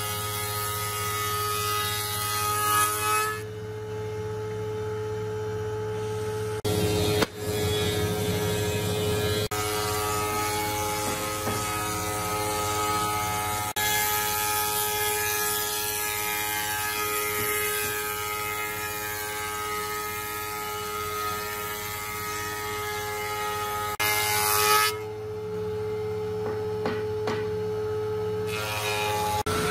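Electric router motor running with a steady whine and hum while its bit cuts a moulding profile along the edge of a long wooden board fed past it. Twice the cutting noise drops away for a few seconds, leaving only the motor running.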